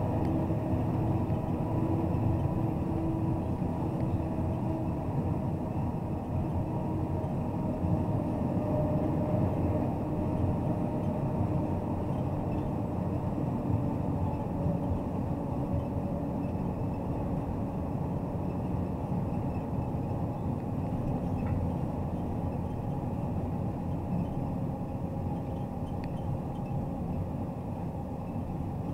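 MAZ truck crane under way on the road: steady engine drone and road noise with a faint hum, unbroken throughout.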